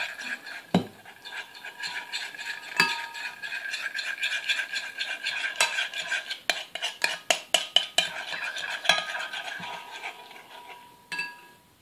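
Metal spoon stirring clear glue in a glass Pyrex measuring jug, clinking and scraping against the glass in quick, irregular strokes as food colouring is mixed through, stopping near the end.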